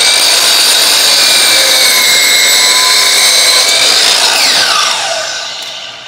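DeWalt sliding compound miter saw running at full speed as its blade cuts through a bundle of five prefinished wood slats still in their plastic wrap. After about four seconds the trigger is released and the motor's whine falls away as the blade spins down.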